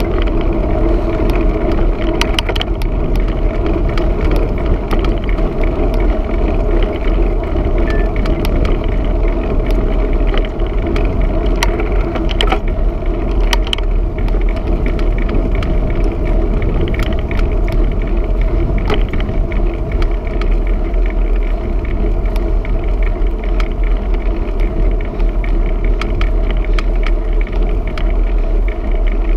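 Steady wind and road rumble on a bike-mounted camera while cycling along a tarmac road, with scattered small clicks and rattles.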